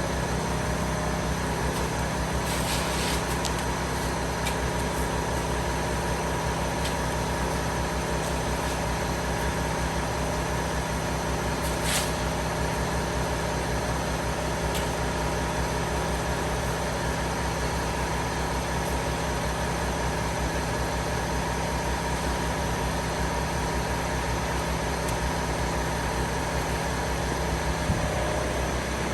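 An engine running steadily at idle, an even drone throughout. A couple of short clicks or knocks sound over it, about three seconds in and about twelve seconds in.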